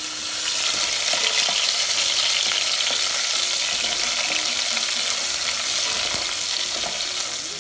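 Chopped garlic and sliced onion frying in hot olive oil in a stainless steel pot: a loud, steady sizzle, stirred with a wooden spoon.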